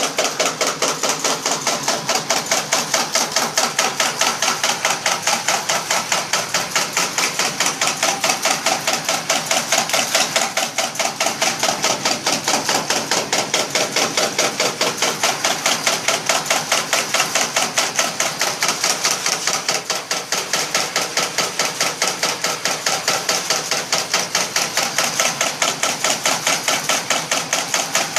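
Machine for cutting plastic gas-cylinder seals running, clacking in an even, fast rhythm of about four strokes a second without a break.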